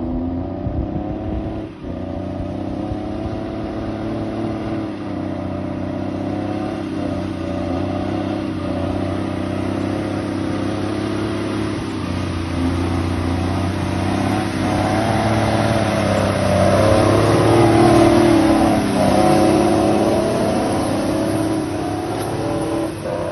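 A loaded cargo truck's engine working through deep mud and standing water, its note rising and falling several times as it revs. It grows louder as the truck approaches and is loudest a few seconds before the end, with splashing and churning from the wheels as it passes close by.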